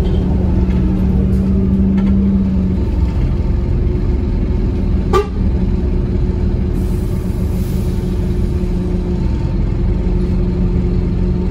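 Scania N230UD bus's five-cylinder diesel engine running steadily, heard from inside the passenger saloon as a low rumble with a steady hum. A single sharp click comes about five seconds in.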